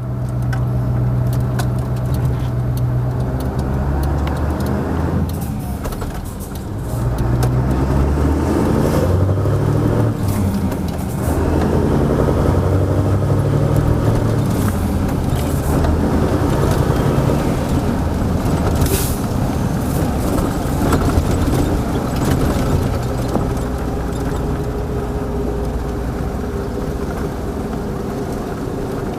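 1989 Mercedes-Benz SK 1748 truck's V8 turbodiesel running under way, its revs dipping and climbing again twice early on. A short hiss sounds about 19 seconds in.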